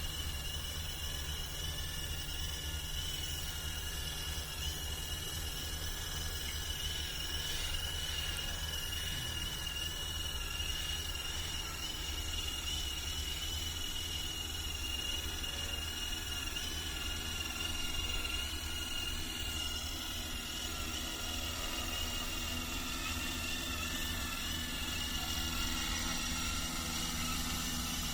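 Multirotor agricultural spraying drone in flight: a steady drone of motors and propellers with a slightly wavering high whine over a low rumble.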